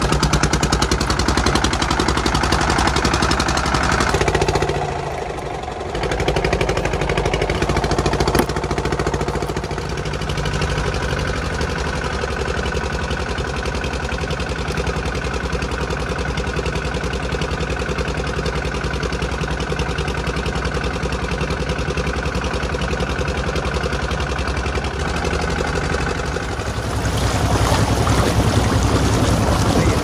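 Boat engine running steadily, with water rushing and splashing along the hull near the end.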